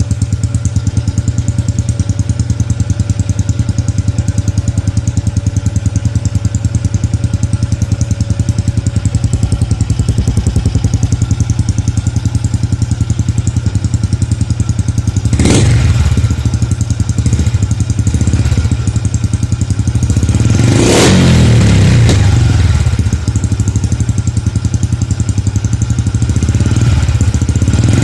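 Honda Wave 110's single-cylinder four-stroke engine idling through its exhaust with a steady pulsing note. The throttle is blipped briefly about fifteen seconds in, then revved longer about twenty seconds in, with another rev starting near the end.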